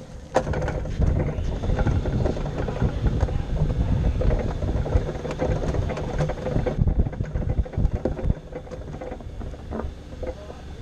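A CGS Hawk ultralight airplane pushed along by hand with its engine off: the wheels rumble over the ground and the tube airframe rattles and knocks, felt through the tail boom. A sharp knock about half a second in; the rumble is loudest through the first two thirds and then eases.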